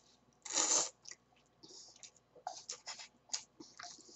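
A person slurping ramen noodles once, briefly, about half a second in, then chewing with many small wet smacking clicks.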